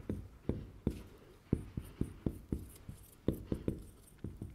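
Marker pen writing on a whiteboard: a quick run of short strokes and taps, about three a second.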